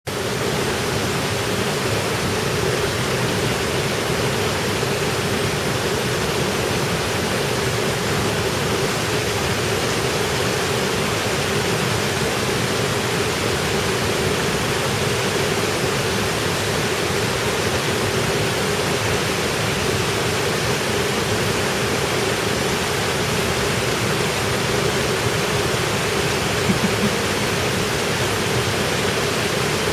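Waterfall on a mountain stream, water rushing steadily and unbroken.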